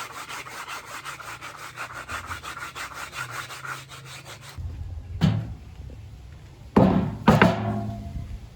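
Wooden board being sanded by hand with sandpaper: quick, even rubbing strokes, about six a second, that stop after about four and a half seconds. Then three loud wooden knocks.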